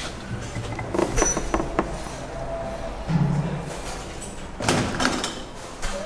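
Metal clicks and knocks as a dial-gauge holder is handled and clamped by hand, in a small cluster about a second in and again near the end.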